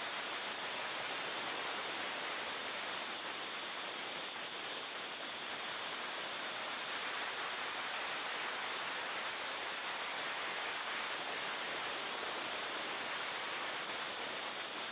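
Steady, even rushing noise with no distinct engine note, the sound of a racing car at speed picked up by an onboard camera's microphone.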